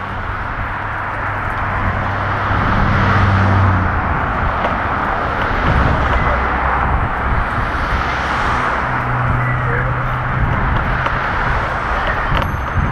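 Steady rushing noise of a kick scooter's wheels rolling on pavement, with wind, as a harnessed German Shepherd pulls it along. A low hum swells twice.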